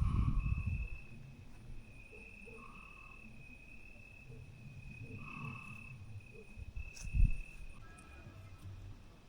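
Crickets trilling in one steady high-pitched song that fades out near the end. Low handling thumps come at the start, and a sharp knock about seven seconds in.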